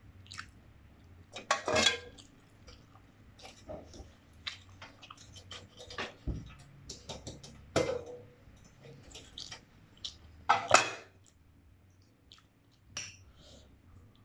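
Spoon and fork clinking and scraping against a bowl of instant noodle soup, a scatter of irregular knocks and clicks, three of them louder than the rest.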